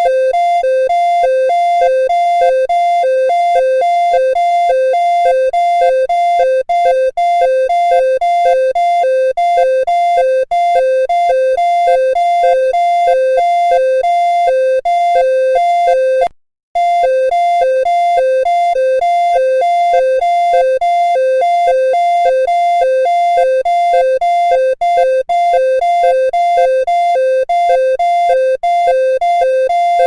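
Emergency alert attention tone: two electronic tones, one higher and one lower, alternating rapidly back and forth. It cuts out briefly about 16 seconds in, then starts again.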